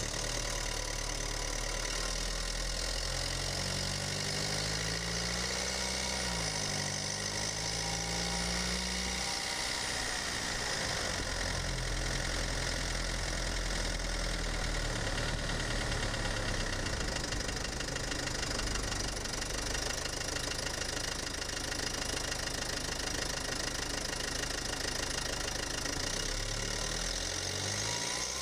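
Mercedes-Benz OM651 2.1-litre four-cylinder twin-turbo diesel running under light load as the car drives off slowly, heard close up from inside the engine bay. The engine is still cold from a cold start. Its note rises and falls a little as the revs change.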